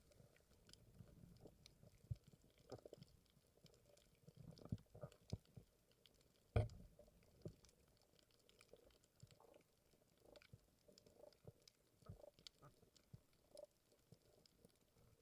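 Faint underwater ambience with scattered soft clicks and low thuds; the loudest thud comes about six and a half seconds in.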